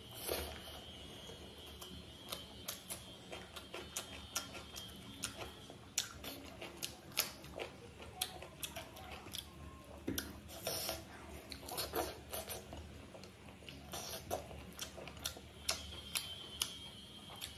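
Close-miked eating sounds: chewing, lip smacks and wet mouth clicks while eating rice and a spicy chicken leg by hand, a few sharp clicks a second.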